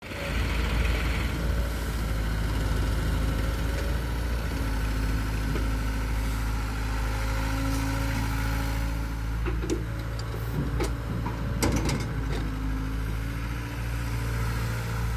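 Heavy diesel engine of a tractor or backhoe loader running steadily with a deep hum. A handful of sharp knocks or clanks come about two-thirds of the way through.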